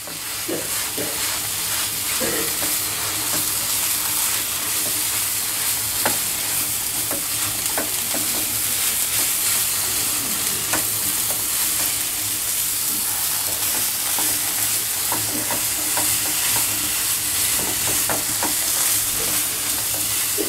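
Grated coconut sizzling as it roasts in a pan, stirred with a silicone spatula: a steady sizzle with scattered scrapes and taps of the spatula against the pan.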